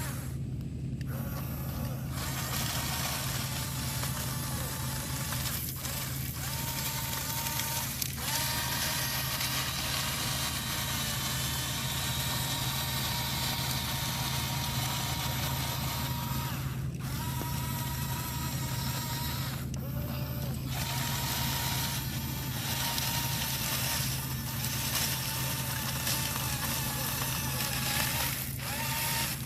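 Radio-controlled model construction machines running: a steady low hum with a thin whine that comes and goes.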